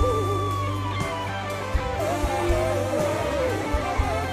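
Live band music: an electric guitar plays a lead line with held, wavering notes and a singing voice, over bass and a steady drum beat.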